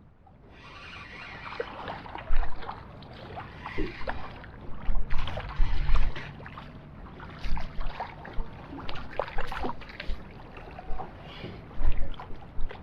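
Water splashing and sloshing around a small boat, with irregular knocks and thumps throughout.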